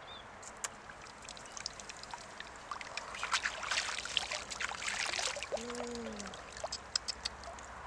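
Water splashing and trickling as a large freshwater mussel is dipped and rinsed in a shallow stream, with many small splashes and drips, busiest in the middle. A short voice sound about six seconds in.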